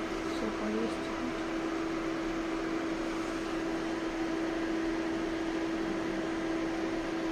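Inside a 71-619 (KTM-19) tram: a steady electrical hum holding one constant tone over an even rushing noise, from the tram's running equipment.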